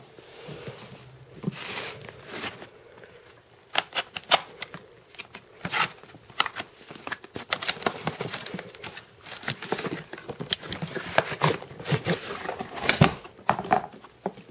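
Packaging of a new paintball marker being handled and opened by hand: irregular clicks, taps and rustling, with a few sharper knocks.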